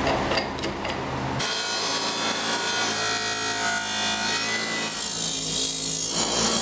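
A few light clicks as a fresh rough abrasive wheel is fitted to the bench buffer, then the buffer running with a steel two-stroke exhaust pipe pressed against its spinning wheels: a steady abrasive rubbing and grinding over the motor hum. The sound changes near five seconds in as the pipe goes to the brass wire wheel.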